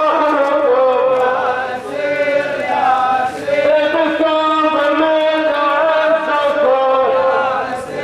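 Crowd of protest marchers chanting slogans in unison, in repeated phrases broken by short pauses.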